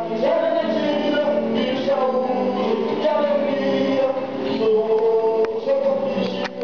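A song with singing voices over musical accompaniment, its notes held and gliding steadily.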